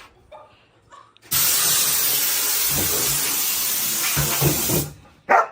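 Compressed air hissing from an air compressor's blow gun in one steady blast of about three and a half seconds, starting a little over a second in and cutting off. A dog barks just before the end.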